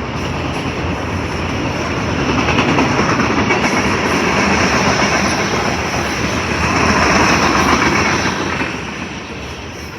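Freight train passing close by, its cars rolling over the rails in a steady rumble and clatter of wheels. It swells louder through the middle and eases off a little near the end.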